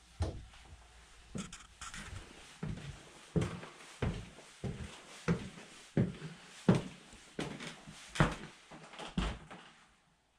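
Footsteps on wooden floors, a steady walking pace of about one and a half steps a second, stopping near the end.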